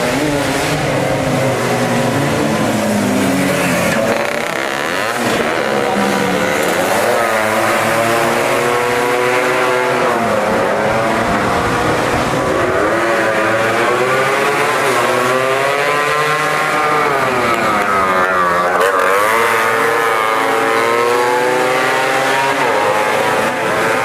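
Several tuned two-stroke racing scooters running together, their engines revving high. Their overlapping engine notes keep dropping and climbing again in pitch as the riders brake and accelerate.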